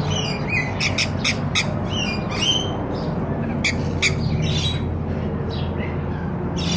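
Rainbow lorikeets screeching: many short, shrill squawks in quick succession, some sliding upward in pitch.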